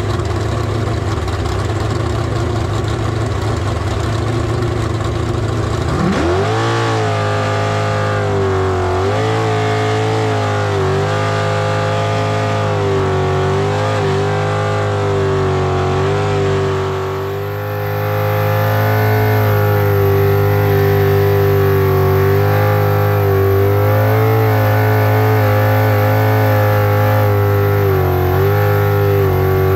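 V8 jet sprint boat engine heard from the cockpit. For the first six seconds it runs low and rough under rushing noise, then it revs up sharply and holds at high revs. The pitch dips and climbs back several times as the throttle is eased and reapplied.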